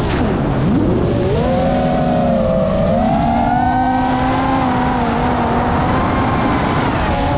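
FPV quadcopter's brushless motors whining. The pitch swoops down steeply about half a second in, then climbs back and holds a steady whine, shifting with the throttle.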